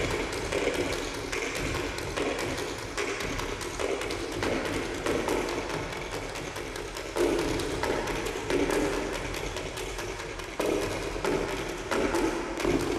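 Music with busy percussion: rapid wood-block-like knocks and taps, growing louder about seven seconds in and again near eleven seconds.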